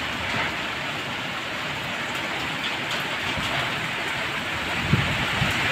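Heavy typhoon rain and wind, a steady rushing hiss, with a low rumbling gust about five seconds in.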